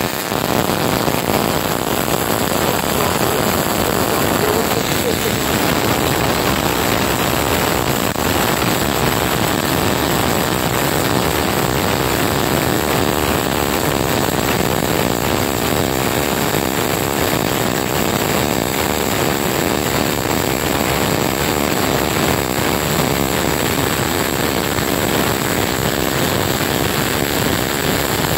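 MIG/MAG welding arc running continuously while a root pass is laid up a vertical T-joint, with 0.8 mm wire under argon-CO2 shielding gas at about 22 volts and 140 amps. The sound is steady and loud.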